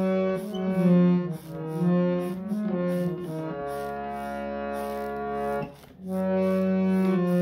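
Harmonium playing an instrumental interlude between verses of a bhajan: sustained reedy notes moving through a melody, then one long held note. A brief break comes near the end, after which another held chord starts.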